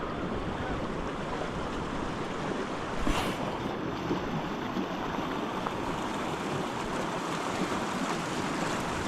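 River water rushing steadily, with a brief louder swish about three seconds in.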